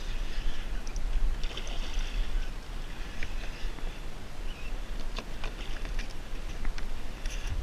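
Water washing and splashing against a kayak hull as it moves across the bay, over a steady low wind rumble on the microphone, with a few light clicks about two-thirds of the way through.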